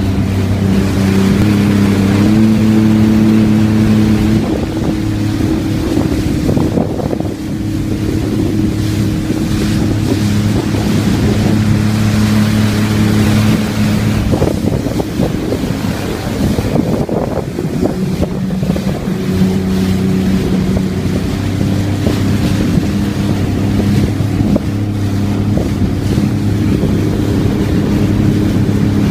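Jet ski engine running at speed, a steady drone over the hiss of spray and wind on the microphone. The engine pitch rises briefly about two seconds in and eases back near four seconds. For several seconds in the middle the engine sinks beneath splashing and wind, then comes back up.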